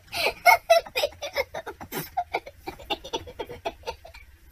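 A child laughing hard in a long fit of quick, repeated bursts that fade out about four seconds in.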